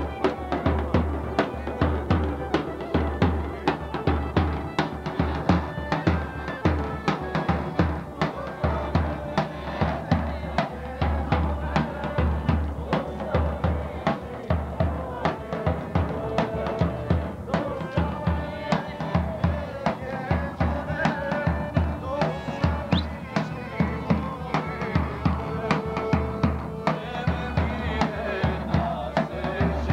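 Live folk dance music: a large drum carried on a strap beats a steady, fast rhythm of heavy low strokes, with held melody notes from other instruments above it.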